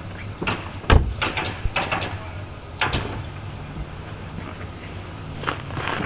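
Car door of a 2007 Volvo S80 being worked: a loud thud about a second in and another near three seconds, with smaller clicks and knocks between.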